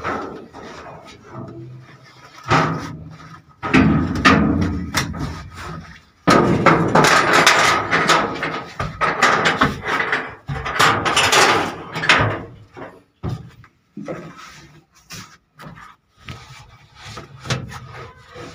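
Irregular knocks, clunks and scraping on the metal body of a combine harvester as someone climbs through it and handles its panels. The longest and loudest stretch of scraping and rustling comes in the middle, between sharp knocks.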